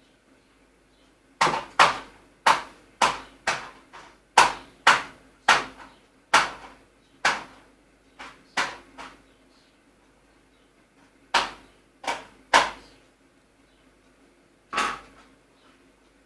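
A run of about a dozen sharp knocks in quick irregular succession, then three more, then one last knock, over a faint steady hum.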